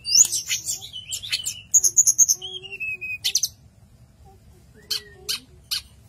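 Caged tledekan gunung, a blue flycatcher with an orange throat, singing: a fast, varied run of sharp chirps, quick upswept notes and a short falling whistle, thinning out to a few single sharp notes after about three seconds.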